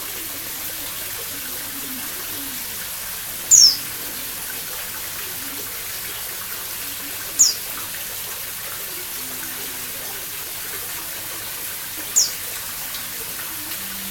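Pleci dakun white-eye giving three short, loud, high calls, each falling in pitch, a few seconds apart, over a steady hiss.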